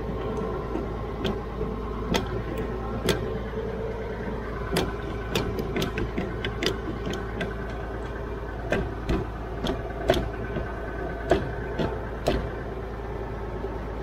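Old Ford farm tractor engine idling steadily, running after years of sitting. Irregular sharp clicks and knocks sound over it.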